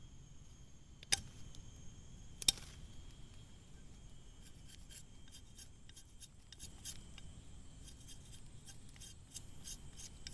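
Machete blade whittling a small wooden stick by hand: two sharp clicks about a second and two and a half seconds in, then from about halfway through a quick, irregular run of short scraping strokes as shavings are cut.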